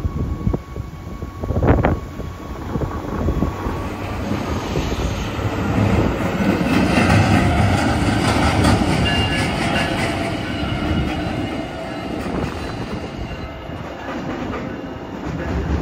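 NJ Transit River Line light rail train, a Stadler GTW diesel railcar, pulling away and rolling past. It builds from about four seconds in, is loudest in the middle with rapid clicks and some high thin tones from the wheels, and eases off near the end. There is a sharp knock about two seconds in.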